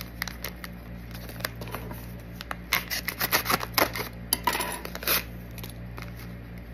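A small instant-tea packet being opened: scattered sharp clicks, then a quick run of snips and clicks about halfway through, followed by a short tearing rustle, over a low steady hum.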